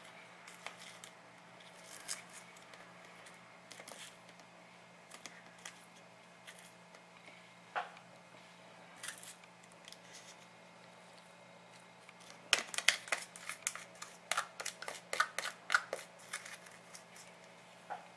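Metal tweezers clicking and scraping against a small plastic cup as they pick up clumps of potting soil with seedlings. Scattered light clicks, then a quick run of clicks about twelve seconds in that lasts some four seconds.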